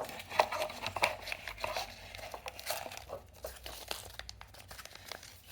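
Hands rummaging through packing peanuts and packaging, with irregular rustling, crinkling and small clicks that are busiest in the first three seconds and then thin out.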